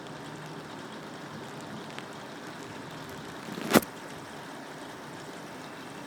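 Steady rain hissing, with one sudden loud crack about two-thirds of the way through that stops short.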